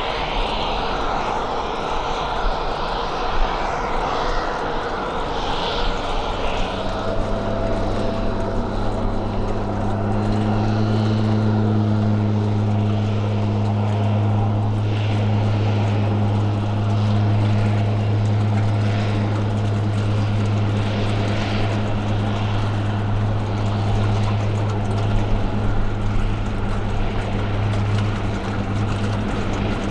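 A DHC-3 Turbo Otter floatplane's turboprop engine and propeller running on the water. About seven seconds in, a strong steady propeller drone comes up as power is applied for the takeoff run, and it holds as the floats throw spray.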